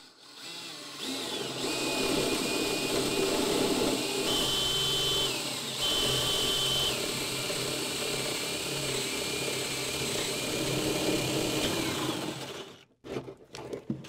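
DeWalt 20V cordless drill boring a hole up through a plywood subfloor into a wooden wall bottom plate. The motor starts about half a second in and runs steadily for about twelve seconds, with the pitch of its whine shifting a few times, then stops sharply near the end.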